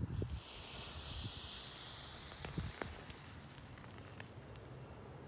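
Iron oxide and aluminium thermite burning on a steel padlock: a fizzing hiss with a few sharp crackles, dying down after about three seconds.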